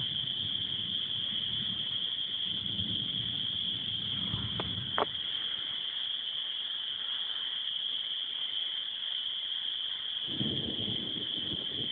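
Steady high-pitched chorus of calling frogs, with low rumbles a few seconds in and again near the end.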